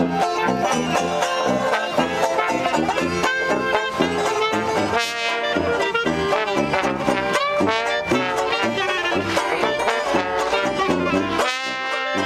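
Traditional jazz band playing an instrumental passage: trombone and trumpet lines over a plucked banjo and a steady beat.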